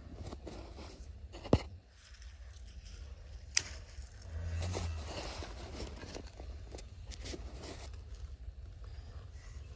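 Rustling and scraping with scattered light clicks and two sharp knocks, the first about a second and a half in and the loudest, over a low steady hum.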